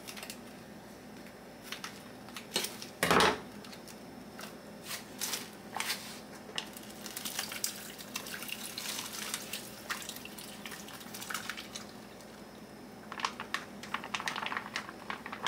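Broth being poured into a slow cooker over the vegetables, among scattered clicks and knocks of kitchen containers, with one louder knock about three seconds in.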